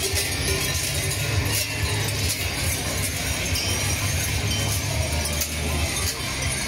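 Krampus costume bells clanging and jangling in a dense, irregular clatter as a Krampus runs past, over a steady low drone.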